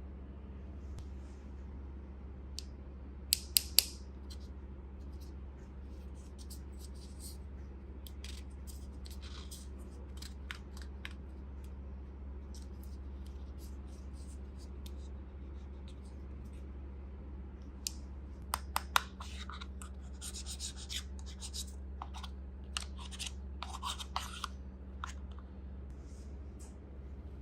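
Plastic toy pieces being handled: three sharp clicks a few seconds in, another cluster of clicks about two-thirds of the way through, then scattered scratching and tapping. A steady low hum runs underneath.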